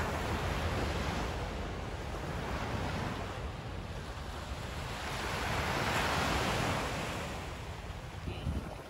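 Small waves washing up onto a sandy beach, with wind buffeting the microphone. The surf swells louder about six seconds in as a wave breaks and runs up the shore.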